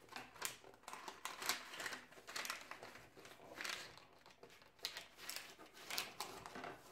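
Brown paper crinkling and rustling in irregular short crackles as it is pressed and smoothed by hand into a wooden drawer.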